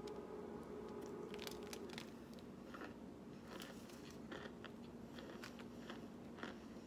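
Close-miked biting and chewing of crunchy oven-baked, frozen chunks of a white powdery food, with irregular crisp crunches starting about a second and a half in, over a steady low hum.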